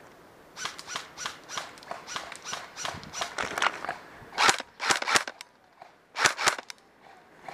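Airsoft guns firing single shots, a steady run of sharp clicks about three a second, then several louder cracks in quick pairs in the second half.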